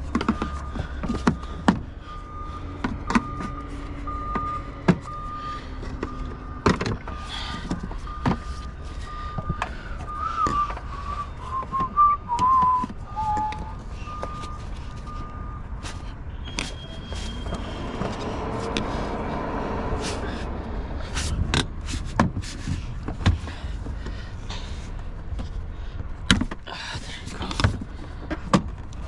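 An electronic beeper sounds a steady series of beeps at one pitch, stopping about sixteen seconds in, over scattered sharp clicks and knocks. A brief wavering whistle comes in around the middle.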